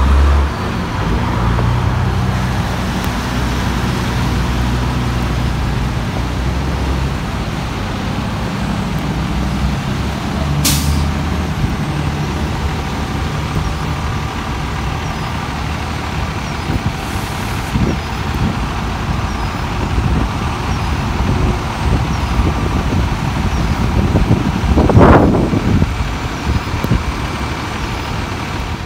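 Fire engine's diesel engine running with a steady low rumble, with a short sharp hiss of air brakes about ten seconds in and a fainter hiss later. A brief louder surge near the end.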